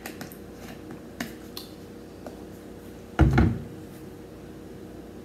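A plastic sports-drink bottle handled: a few small clicks as its screw cap is twisted shut, then one dull thump about three seconds in as the bottle is set down on the table.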